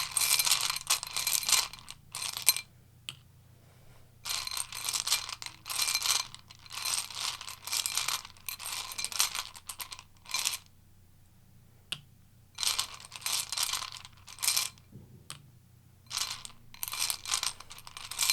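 Tarot cards being shuffled by hand: repeated rustling, clicking bursts of a second or two each, separated by short pauses.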